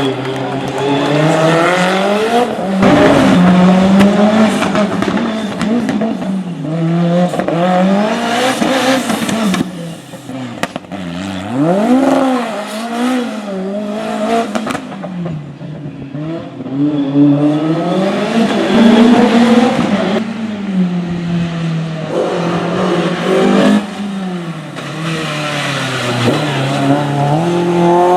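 Rally car engine revving hard, its pitch climbing through the gears and then dropping sharply as the driver lifts off, again and again, all loud.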